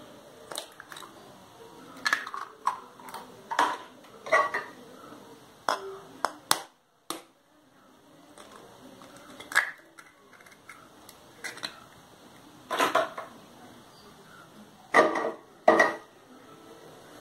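A steel spoon tapping and cracking eggs open over a steel tumbler: sharp knocks and clinks of spoon on shell and steel, in several short clusters, some ringing briefly.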